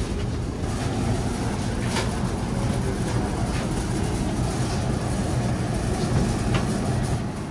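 Steady low vehicle rumble with a few light clicks and knocks through it.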